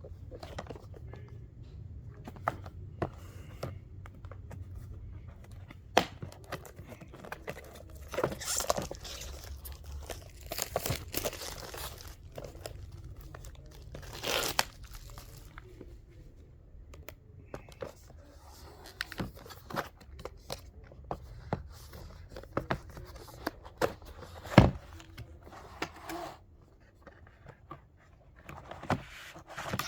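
Screwdrivers being handled in their packaging: crinkling and rustling of the packaging as they are worked in and out, with scattered clicks and knocks, one sharp knock about three quarters of the way through.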